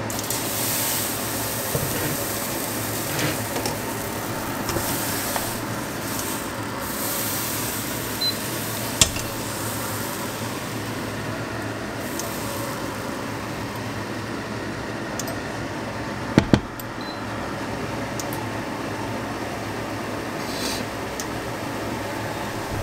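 Thin pancake batter hissing and sizzling steadily in a hot stainless-steel frying pan. The pan knocks lightly on the cooktop, with a sharper double clank about two-thirds of the way through.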